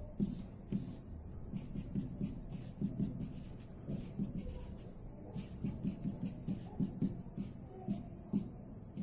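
Marker drawing on a large sheet of brown paper: a quick, irregular run of short strokes rubbing and scratching across the paper as lines and letters are drawn.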